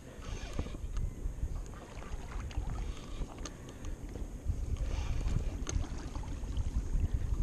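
Wind buffeting the microphone, an uneven low rumble that rises and falls, with a few faint clicks.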